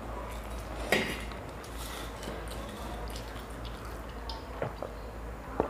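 Close-miked eating sounds: fingers working noodles and chewing, with drinking from steel tumblers. A few sharp knocks, the loudest about a second in, as the metal tumblers are handled on the table.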